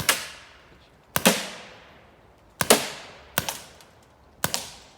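Gunshots from a firearm: about seven sharp shots at irregular spacing, some in quick pairs, each followed by a long echoing decay.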